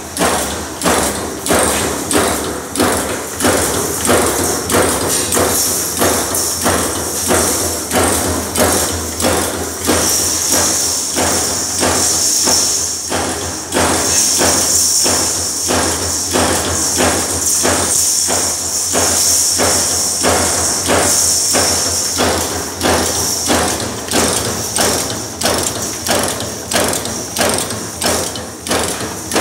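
Concertina wire-making machine running, striking in a steady rhythm of about three strokes every two seconds over a low, steady hum. A high hiss joins in from about ten seconds in until about twenty-three seconds.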